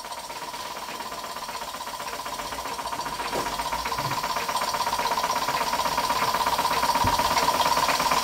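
Scratch-built oscillating-cylinder model steam engine running steadily, its exhaust beating in a quick, even rhythm, over a steady high tone. It grows steadily louder throughout.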